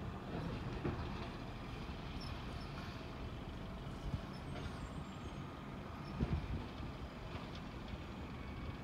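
Distant Crane Carrier cab-over garbage truck with a Wayne Curbtender body, its diesel engine running steadily down the street. There is a low thump about six seconds in.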